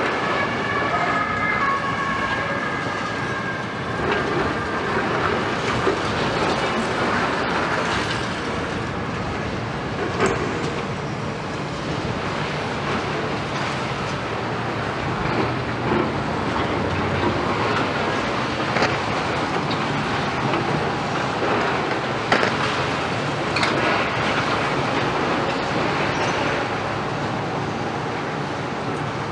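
Several heavy hydraulic excavators working rubble, their diesel engines running steadily. There is high metallic squealing near the start, and occasional knocks and clanks of concrete and steel.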